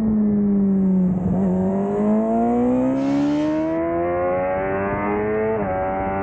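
Suzuki GSX-R600 inline-four sportbike engine under load on track. The revs sag for about the first second, then climb steadily under throttle out of the corner, with a quick upshift near the end before they rise again.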